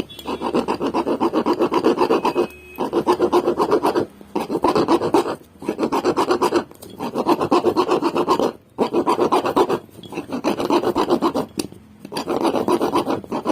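A hand file rubbing back and forth on the copper commutator of a motorcycle starter motor's armature, in about eight quick bursts of fast strokes with short pauses between. It is cleaning off the carbon deposits on the scored commutator, which kept the starter from taking load and made it start intermittently.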